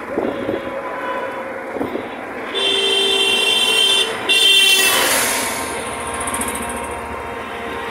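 Road traffic noise while riding in an open rickshaw, with a long vehicle-horn honk about two and a half seconds in and a shorter honk right after it. A rush of noise swells and fades away around five seconds in.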